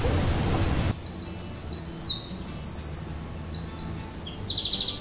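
Songbird singing in woodland: rapid runs of high, short downward-sliding notes, repeated in quick phrases. A steady rush of noise under the first second cuts off abruptly.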